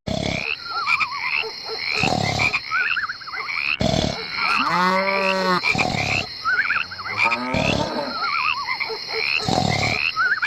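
Frogs croaking, with a short chirp repeating evenly about twice a second and warbling trills alongside; one long, deep croak comes about halfway through.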